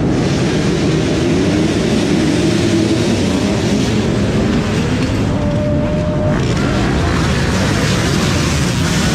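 A large pack of dirt bikes running at full throttle together, a dense mass of engines with pitches rising as they accelerate past.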